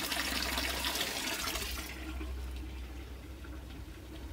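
Thin stream of water splashing into a plastic fish tank, stopping about two seconds in.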